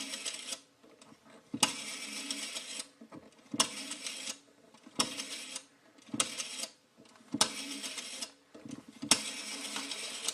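Old rotary telephone dial being dialled digit by digit: about seven times in a row a sharp click is followed by the dial spinning back with a whirring rattle of clicks. Each return lasts from half a second to just over a second, depending on the digit.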